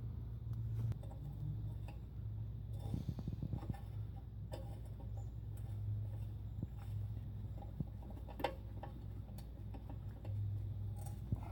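Scattered light clicks and knocks, the sound of hands and tools working at the exhaust header bolts, over a steady low hum.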